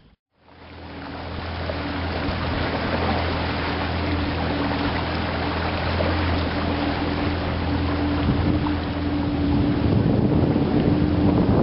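Small boat's motor running steadily under way, a low even hum under the rush of water along the hull and wind buffeting the microphone. The sound drops out briefly at the start, then fades up over the first couple of seconds.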